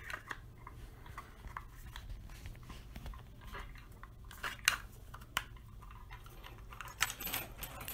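Handling noise from an electronic keypad door lock's housing and knob: scattered small clicks and knocks as it is turned over in the hands, with a few sharper clicks around the middle and a quick cluster near the end, over a steady low hum.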